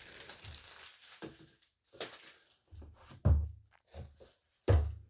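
Tissue paper crinkling and a gift box being handled as a silk tie is taken out, in a series of short, uneven rustles with two soft knocks, one about three seconds in and one near the end.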